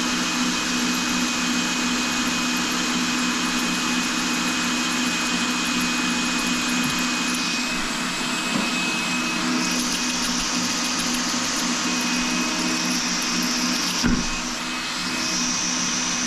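Power drill running steadily while drilling a hole through porcelain tile, with a steady hum throughout. About fourteen seconds in there is a short knock and the sound briefly dips.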